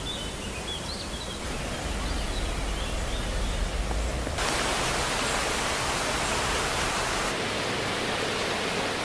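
Steady rushing noise of a flood-swollen river, getting louder and brighter about four seconds in. Birds chirp faintly over it in the first few seconds.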